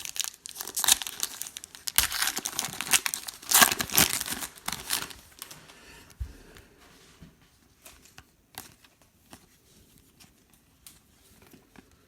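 Foil wrappers of Prizm Football trading-card packs crinkling and tearing as packs are ripped open. The rustling is loudest in the first half and dies down to faint scattered clicks after about six seconds.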